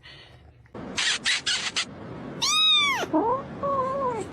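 A domestic cat meowing: one loud, long meow that rises and falls about halfway through, followed by two shorter, lower meows. A few short rasping noises come just before the first meow.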